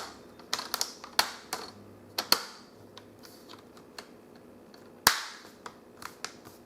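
Plastic screen bezel of a Dell Precision M6600 laptop being pressed onto the lid, its clips snapping into place in a string of sharp, irregular clicks. The loudest snap comes about five seconds in.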